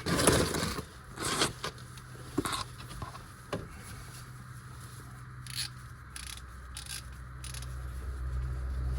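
Metal scraping and short clicks as an oil filter wrench is worked onto a car's oil filter, loudest in the first second. A low steady rumble grows under it and stops near the end.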